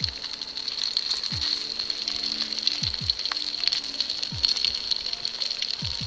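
Hot oil sizzling and crackling steadily as two round fritters deep-fry in a camping pot. Background music with a falling note about every second and a half.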